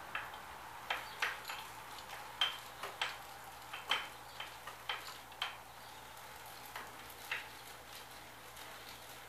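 Irregular light clicks and ticks from a CX601 benchtop milling machine's hand-cranked roller chain and sprocket drive as the crank is wound to run the head up and down. The clicks stop about seven seconds in.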